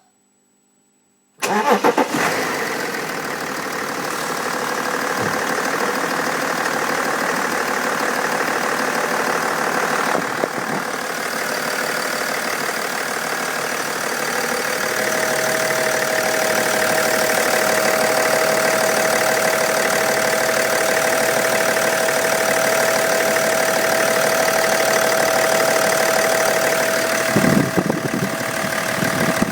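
BMW X5 engine starting about a second in and then idling. About halfway through, a steady high whistle comes in over the idle and holds; this whistle is the fault the owner is recording.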